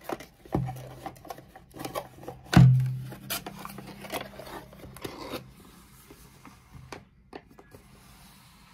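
Merchandise being handled on a table: rustling and light clicks, with two knocks, the louder one about two and a half seconds in, as items are set down and picked up.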